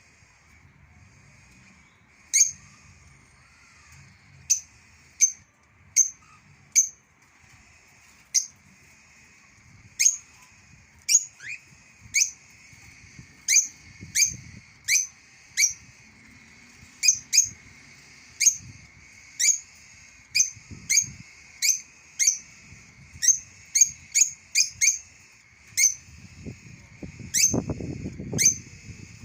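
Bulbul giving short, sharp chirps, each a quick downward sweep in pitch, spaced irregularly and coming faster in the second half, over a steady high drone in the background. A low rumble near the end.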